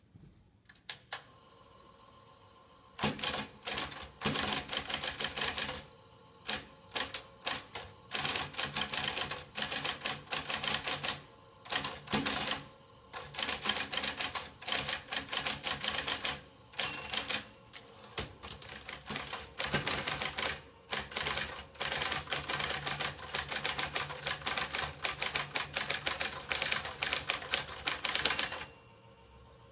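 Remington 700 hybrid electric typewriter: its motor hums for about three seconds, then the electric key action types in rapid runs of sharp clacks with short pauses between words and lines. The owner calls it a loud machine.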